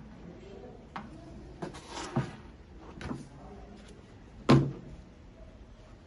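Handling knocks and clunks on a stainless steel griddle housing as its power cable and screwdriver are worked at the casing: a few light knocks, then one much louder thump about four and a half seconds in.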